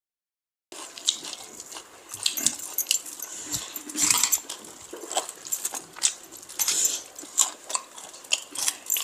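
Close-miked eating sounds: irregular wet chewing, lip smacks and mouth clicks as rice and curry are eaten by hand. They start abruptly after a moment of silence.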